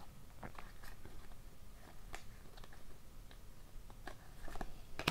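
Hockey trading cards being flipped through by hand, card sliding over card, making faint, irregular ticks and clicks.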